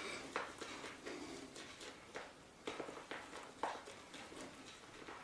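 Shaving brush working shave cream into a lather in a bowl: faint, irregular soft taps and strokes of the brush.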